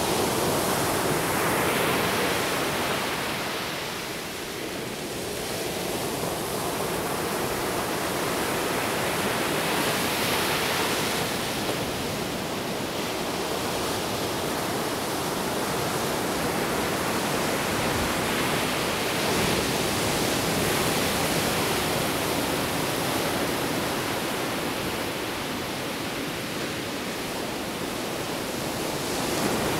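Ocean surf breaking on a sandy beach: a steady wash of noise that swells and eases as the waves come in.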